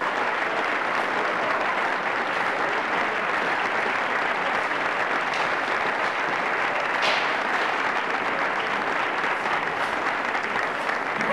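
Sustained applause at a steady level. It cuts in suddenly and cuts off just as suddenly.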